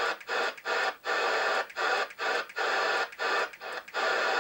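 Albrecht AE6199 FM CB radio's speaker hissing with open squelch, broken by a short gap of silence each time the channel is stepped up, about nine steps in four seconds. No station is heard: the channels are empty.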